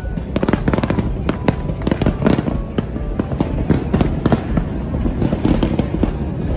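Fireworks going off in rapid, irregular succession, a dense run of bangs and crackles, with music underneath.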